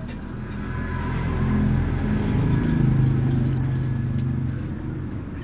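A motor vehicle's engine running past, a low hum that swells to its loudest about halfway through and then fades.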